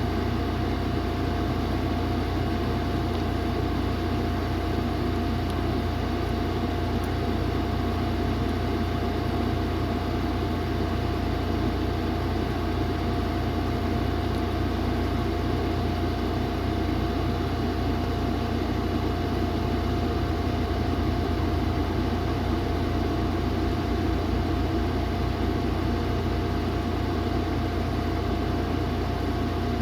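Steady mechanical hum with a constant low drone and a thin steady tone over it, unchanging throughout.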